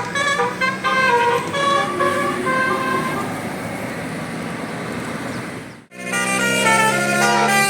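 Bus 'telolet' musical horn of the Basuri type, playing a tune in short stepped notes over traffic noise. The horn stops about three seconds in, leaving engine and road noise. After a brief dropout near the end, a louder horn tune starts.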